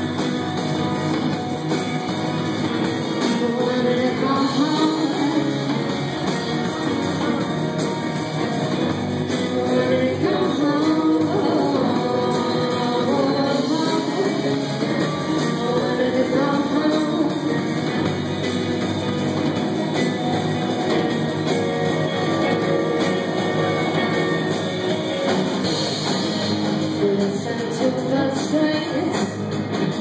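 A live band playing, with a woman singing a melody over electric guitars and drums.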